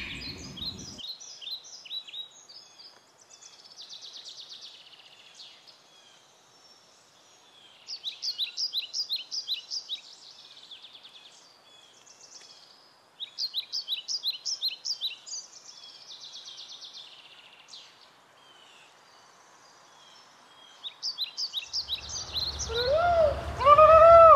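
Songbird song: four phrases of rapid, repeated high chirps a few seconds long, with fainter chirping in between. Near the end a low rumble and louder, lower calls that rise and fall in pitch come in.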